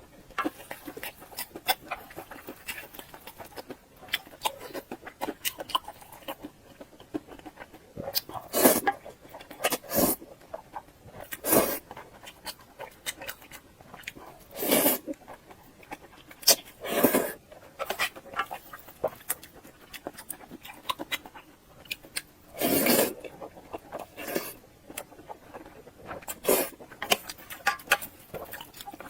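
Close-miked eating sounds: wet chewing clicks and mouth noises, with several louder, longer bites or crunches spread through.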